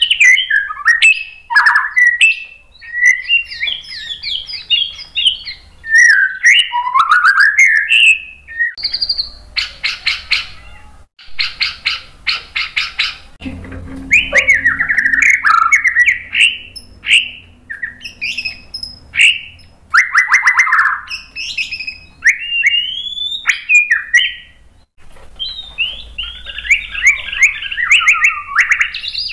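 White-rumped shama singing a long, varied song of whistled phrases and quick chattering notes. A third of the way in, the whistles give way to a few seconds of rapid rattling runs.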